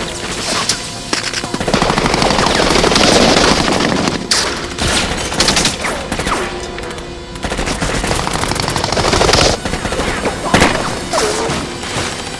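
Automatic gunfire from a film gunfight: long rapid bursts of machine-gun fire, heaviest about two seconds in and again near the end, over a music score.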